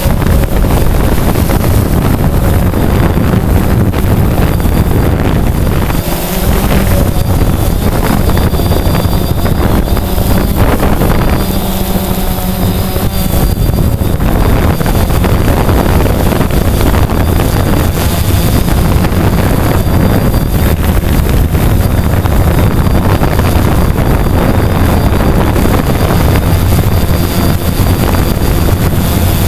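Quadcopter drone's motors and propellers buzzing steadily, with wind buffeting the onboard camera's microphone and a faint high motor whine.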